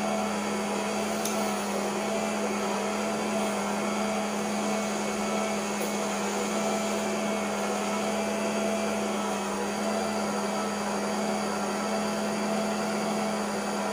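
Electric stand mixer running steadily at one speed, beating a cream mixture in its stainless steel bowl: an even motor hum with a strong low tone.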